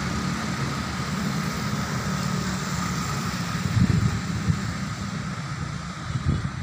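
Steady low rumble of distant city traffic, with a couple of brief low bumps on the microphone about four and six seconds in.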